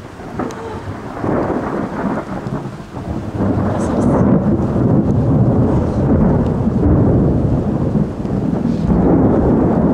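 Thunder rolling loud and long. The rumble builds about a second in, swells louder a few seconds in, and keeps on without a break.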